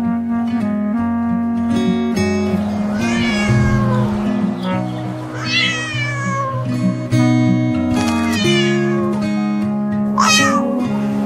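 A cat meowing about four times, drawn-out wailing calls, the last one short and high, over steady acoustic guitar background music.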